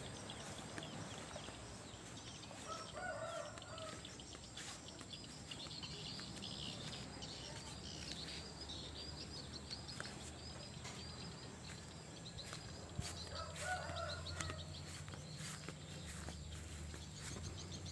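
A rooster crowing faintly, twice: about three seconds in and again near the end.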